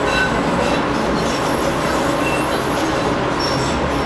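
Light rail train running, heard from inside the car: a steady rumble of wheels on the rails, with a few faint, brief high squeals as it takes a curve.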